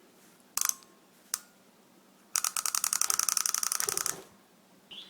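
Clockwork mechanism of a small wind-up toy clicking rapidly and evenly for about two seconds, after two single clicks in the first second and a half.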